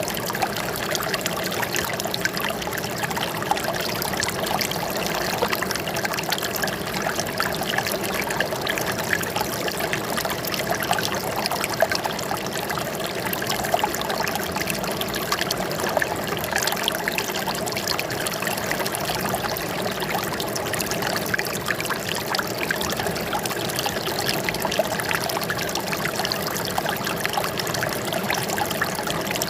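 Running water trickling and splashing steadily, a continuous babble like a small stream flowing over stones.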